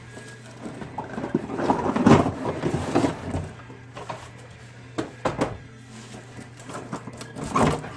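Handling noises of an RC truck unboxing: cardboard and packaging rustling and shifting, with a few sharp knocks about five seconds in and near the end.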